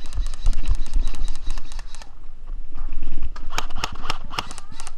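Airsoft guns firing strings of sharp clicking shots, with a run of stronger shots a little past halfway, over running footsteps and thumps.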